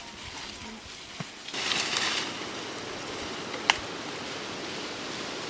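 Dry sticks and brush rustling as firewood is handled, over a steady hiss, with one sharp crack about two-thirds of the way through.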